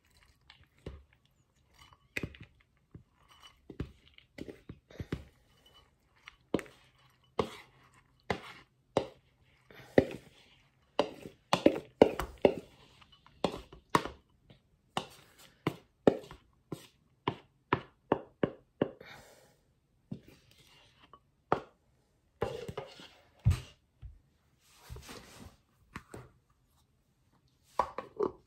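Irregular knocks, clacks and scrapes as spoonfuls of soaked red lentils are tipped into a glass blender jar, the spoon striking the jar and bowl, about one or two knocks a second.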